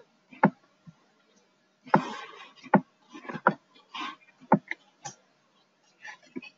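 A handful of sharp, irregularly spaced clicks and taps from a computer mouse and keyboard, as a command is copied, pasted into a terminal and entered.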